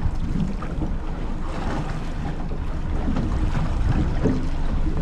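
Wind buffeting the microphone aboard a small boat at sea, over a steady low rumble and the wash of the sea.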